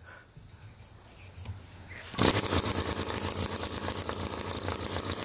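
Homemade two-stroke engine converted from a refrigerator compressor, fired by a constant spark-plug arc, is rope-pulled about two seconds in. It catches and runs with a fast, even firing rhythm, like a weed whacker or a chainsaw.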